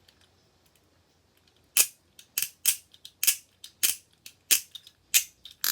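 A run of sharp snapping clicks, about three a second and unevenly spaced, starting a couple of seconds in.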